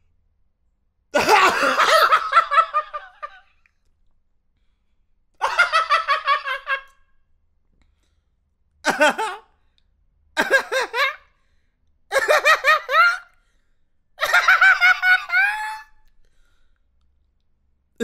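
A man laughing in six separate short takes with silent gaps between them, each a quick run of pulsing laugh syllables; the first, about a second in, is the longest.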